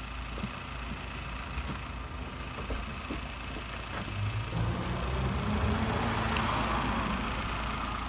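Motor vehicle engine idling with a steady low hum, with a few faint clicks. It grows louder about halfway through.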